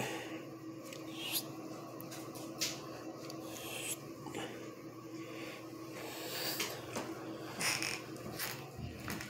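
Quiet room tone with a faint steady hum and a few brief, soft rustling strokes scattered through it.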